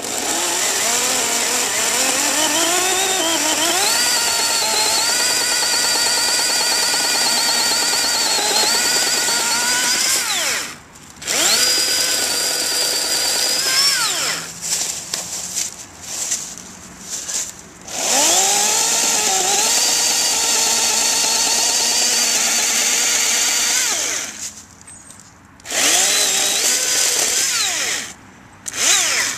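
Oregon PowerNow 40-volt battery-powered electric chainsaw cutting through a log in several runs, a high motor-and-chain whine that sags in pitch as the chain bites into the wood and climbs back, then winds down each time the trigger is released, with short pauses between cuts.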